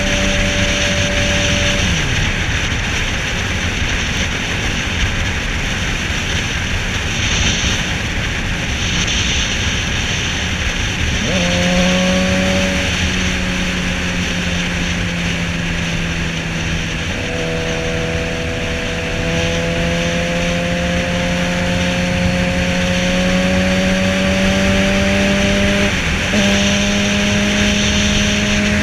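Suzuki sport bike's engine at road speed under heavy wind rush on the microphone. The engine note holds steady, fades about two seconds in, comes back with a quick rise around eleven seconds, then climbs slowly, with a short break near the end.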